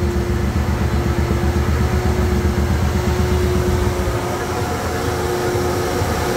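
Suzuki M109R's 1783 cc V-twin, fitted with a full aftermarket exhaust, idling on a dyno with a low, uneven, loping beat. A steady hum runs over it. About four seconds in the engine beat drops away and gets quieter.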